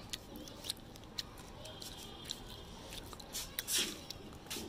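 Wet laundry being handled and hung out: rustling cloth with a scatter of short sharp snaps. The loudest is a brief flap about three and a half seconds in, as a garment is pulled from the bucket.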